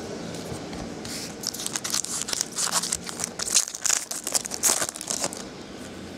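Foil wrapper of a trading-card pack crinkling and tearing as the pack is opened and handled. It is a quick run of crackles that dies down near the end.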